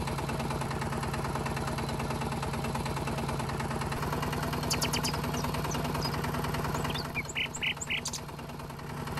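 Tractor-style engine running steadily with an even rhythmic beat, its pitch stepping slightly about four seconds in. A few short bird chirps come near the end.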